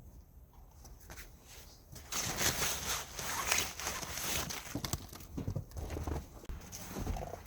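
Snow and tent fabric being handled and trodden: irregular crunching and rustling that starts about two seconds in and goes on in uneven strokes.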